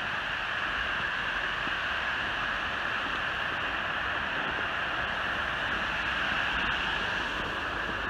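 Small waterfall rushing steadily.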